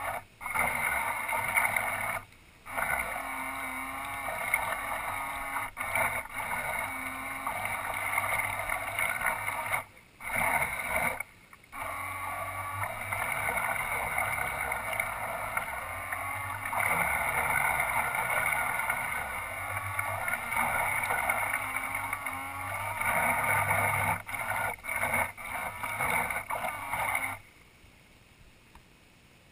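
Twin-propeller radio-controlled model boat's drive motors and propellers whirring steadily as it runs across the water, heard from the boat's own deck. The motors cut out briefly a few times, stutter on and off, and then stop a couple of seconds before the end as the boat reaches the shore.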